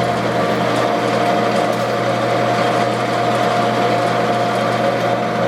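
Lockformer Quadformer HVAC rollformer running steadily, its 3 hp single-phase electric motor driving the forming rolls with a constant hum and whir.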